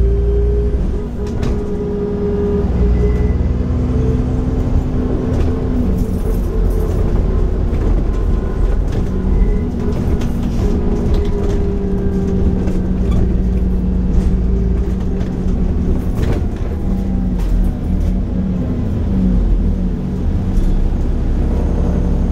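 Alexander Dennis Enviro 400 bus's Cummins Euro 4 diesel engine with Voith automatic gearbox, heard on board while the bus drives: a steady engine drone whose pitch rises, falls and steps as it pulls and shifts, with a faint turbo whistle and small rattles.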